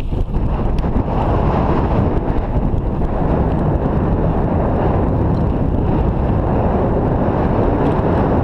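Steady, loud wind noise buffeting the microphone of an action camera on a mountain bike rolling down a dirt singletrack, with the rumble of the tyres on the trail beneath it.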